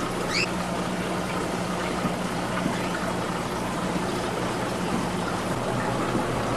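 Steady rush of aquarium filtration pumps moving water, under a low electrical hum. One short, rising bird chirp about half a second in.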